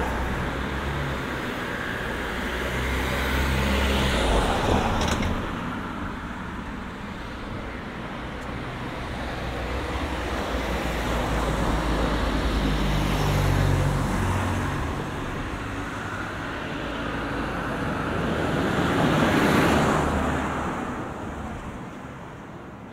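Road traffic: cars passing close by one after another, each swelling and fading away, three passes in all, the last about 19 seconds in.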